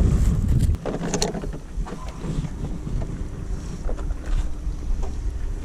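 Wind buffeting the camera microphone as a low rumble, heaviest for about the first second, with a few faint clicks and rustles.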